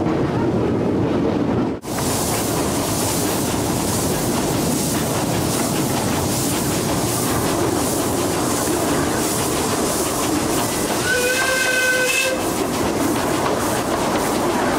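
Narrow-gauge steam locomotive running along 2 ft gauge track with a steady hiss and rattle of the train. About eleven seconds in its steam whistle blows once, a single held note for just over a second.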